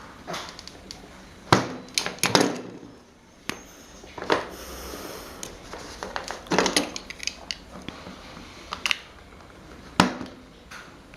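Irregular knocks and clinks of metal fan parts and hand tools being handled, about eight sharp hits spread through the stretch, with a short hiss a little under halfway.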